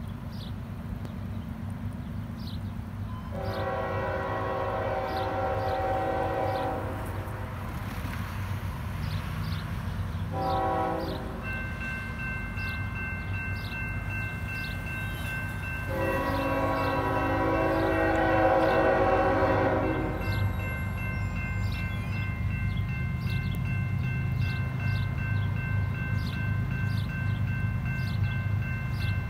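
Union Pacific GE C45AH locomotive's multi-chime air horn blowing for the grade crossing as the train approaches: a long blast, a short one, then another long blast. About eleven seconds in, the crossing's warning bell starts ringing and keeps on, over a steady low rumble.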